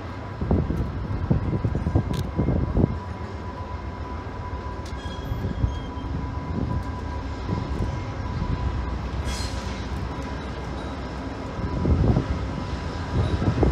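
VIA Rail GE P42DC diesel locomotive running as it pulls a passenger train toward the listener, a steady low rumble under a thin steady high tone that grows stronger near the end. A short hiss sounds about nine seconds in.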